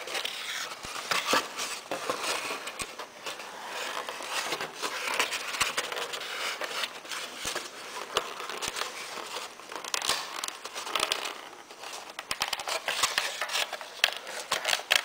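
Foam airframe rubbing, creaking and crinkling under the hands as a Hitec HS-55 micro servo is worked into a snug slot in the foam tail, with scattered small clicks.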